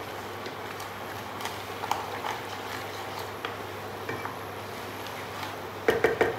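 Wooden spatula scraping and knocking against a stainless steel kadai as dry fruits in ghee and milk are stirred, with a short burst of strokes near the end. Under it there is a steady low hiss and hum, with a few light ticks.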